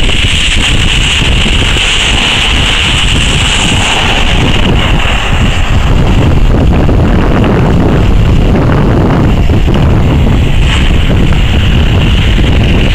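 Strong wind buffeting the microphone: a loud, steady rushing noise with no distinct events.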